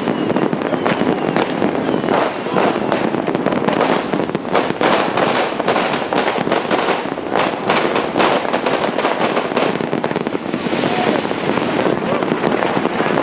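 Dense, continuous barrage of fireworks and strings of firecrackers going off all around, a steady rattle of overlapping bangs and crackles with no pause. A faint whistle streaks through near the end.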